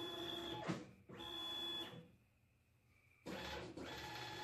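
Stepper motors of a homemade aluminium-extrusion CNC router whining as they drive the gantry in short moves. One move ends with a quick drop in pitch just under a second in, a second brief move follows, then after a pause a longer move starts about three seconds in.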